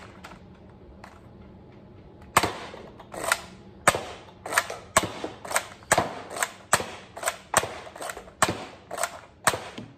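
Nerf Elite 2.0 Trailblazer RD-8 pump-action dart blaster being pumped and fired again and again. From about two seconds in there is a run of sharp plastic clacks, roughly eight strong shots about a second apart with lighter clicks between them.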